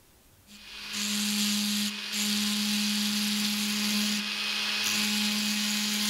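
Handheld rotary tool with a small bur, starting up about half a second in and running at a steady speed as it cuts into a small piece of sheet metal. A constant motor hum sits under a high grinding hiss, which thins briefly a couple of times.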